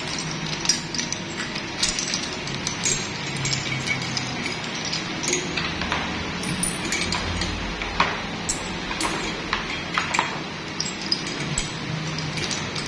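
Small metal parts clinking and ticking irregularly as nuts, bolts and pins are picked by hand from a plastic basket and fitted onto a pin board and a bolt-and-nut rack.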